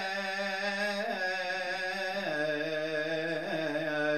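A priest's solo male voice chanting in Syriac Orthodox style, a long, wavering melismatic line over the words of institution for the chalice ('shed and given for the forgiveness of sins'). The pitch steps down a little after two seconds in.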